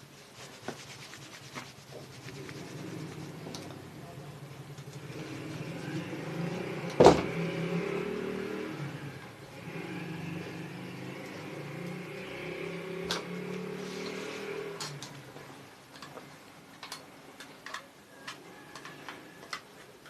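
A motor hums, swelling and fading twice, with one sharp click about seven seconds in and light ticks around it.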